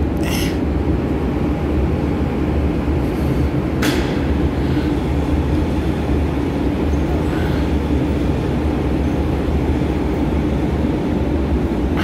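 Steady low machinery hum and rumble, with two short knocks: one just after the start and one about four seconds in.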